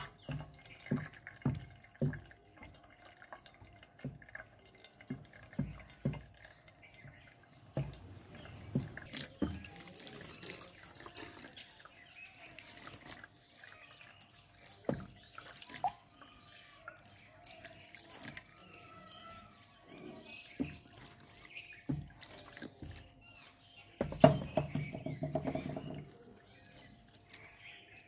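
Slotted steel skimmer stirring and pressing wet chhena curds in a cloth-lined strainer, with water dripping as the whey drains. Soft low knocks come about twice a second at first, and there is a louder stretch of handling near the end.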